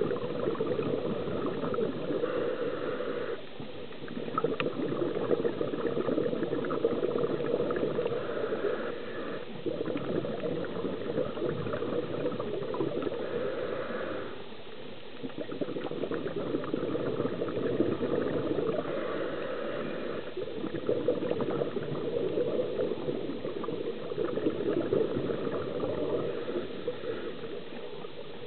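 Scuba diver's regulator breathing heard underwater: bubbling exhaled air in long bursts, with short lulls about every five to six seconds that follow the breaths.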